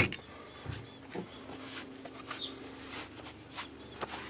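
Faint bird chirps: short, high, down-slurred notes repeated throughout, with a few light clicks and a faint steady hum from about a second in.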